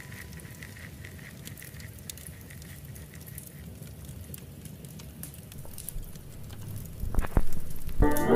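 Wood fire crackling in a fireplace: faint scattered pops and ticks over a low rumble, with a couple of louder knocks about seven seconds in. Music starts just before the end.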